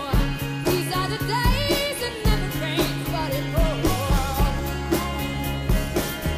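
A musical-theatre song: a sung melody with vibrato over sustained bass notes and a steady drum beat.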